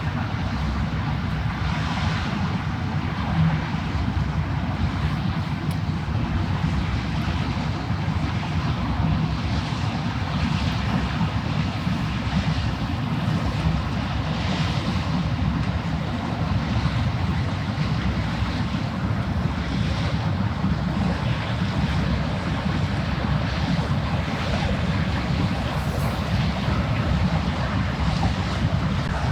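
Low, steady rumble of a passing ship's engine, with water washing and wind over it.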